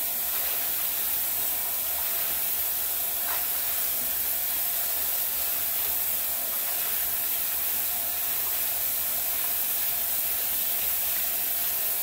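Kitchen tap running steadily, its stream from a faucet-mounted filter pouring into a sink full of water and chopped collard greens.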